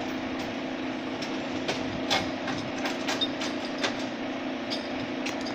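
Fire engine's engine running with a steady hum, with a scattering of short sharp clicks over it.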